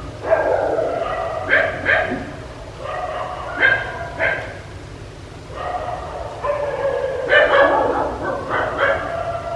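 Dogs barking in repeated short barks, some overlapping, with a brief lull about halfway through and then a denser run of barking.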